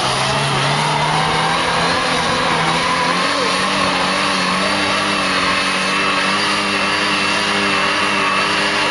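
Lada Niva engine revving up and then held at high revs, running steadily under load.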